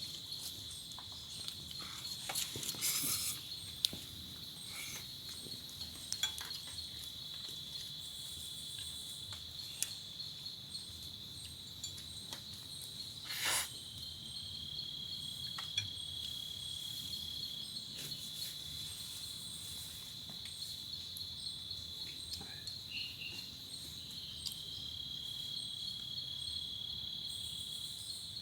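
Steady high-pitched insect chorus chirring without a break, with scattered light ticks and taps and one sharper click about 13 seconds in.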